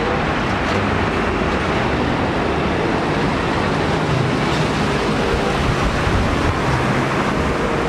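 Road traffic: box trucks driving past close by, steady engine and tyre noise.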